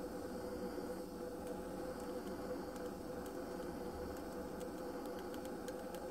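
Handheld gas blowtorch flame hissing steadily while heating the scored line on a glass bottle, with faint high ticks from the glass that come more often near the end. The ticking is the glass tinging as heat stress builds along the score, the sign that it is starting to crack along the line.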